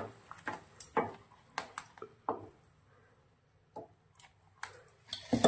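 Wooden spatula stirring thick papaya pulp in a steel pan as it cooks into jam: short scrapes and knocks of wood against the pan, about two a second at first, a pause about three seconds in, then a quicker cluster near the end.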